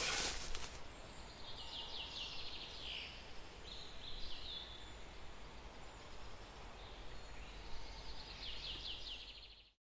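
Woodland ambience: birds singing in short repeated trills over a faint steady hiss. It opens with a loud burst of rustling and thuds in the first second and cuts off abruptly just before the end.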